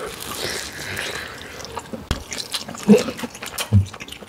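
Close-miked eating sounds: wet, sticky mouth and food noises with small clicks, a low thump about two seconds in, and two brief low vocal sounds near the end.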